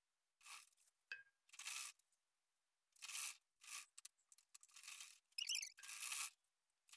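Faint rustling and scraping of cotton fabric being fed under a sewing machine's presser foot, in short irregular bursts, with one light metallic click about a second in.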